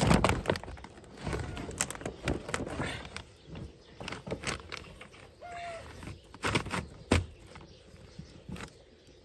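Plastic tarpaulin crackling and rustling in irregular strokes as it is handled and a cord is tied along its edge. It is loudest at the start, with a sharp knock about seven seconds in.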